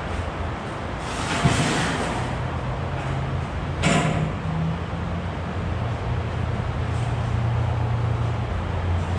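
Boom pump truck's engine running steadily, its pitch stepping up and down. Two sharp metal knocks come about one and a half and four seconds in, the first with a short hiss.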